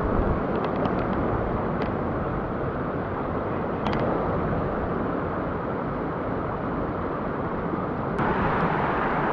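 Rushing mountain-stream water, a steady dense noise, with a few faint light clicks in the first few seconds. The rush turns brighter about eight seconds in.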